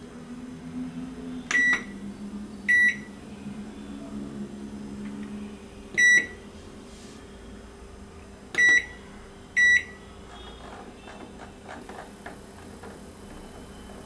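Microwave oven keypad beeping as buttons are pressed to set the power level and cooking time: five short, high beeps, the last two close together, over a low steady hum.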